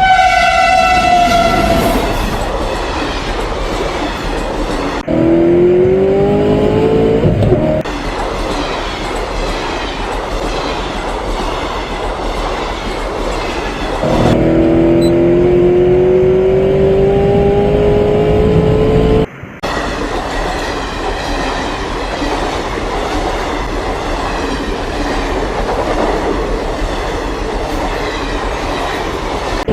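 Railway train sounds: a horn blast for about the first two seconds, then a continuous running rumble with two slow rising whines. The sound cuts out briefly about two-thirds of the way through.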